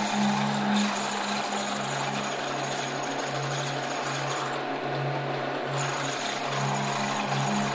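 Milling machine end mill cutting a steel casting, a steady rhythmic machining chatter with an even low pulse.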